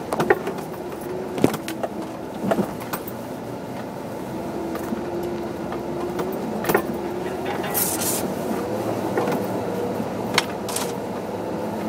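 Jeep engine pulling at low speed on a snowy trail, its note easing down and then climbing slowly with the throttle, with scattered sharp knocks and rattles as the vehicle jolts over bumps.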